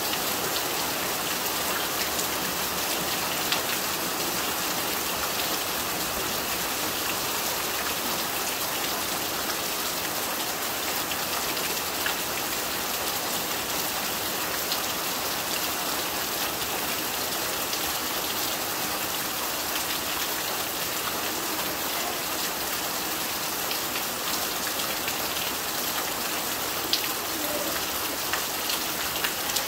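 Heavy rain pouring steadily, with a few sharper drop hits now and then.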